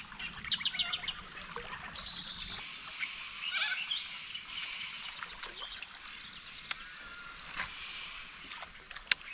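Several birds chirping and trilling over a faint trickle of flowing river water, with one sharp click near the end.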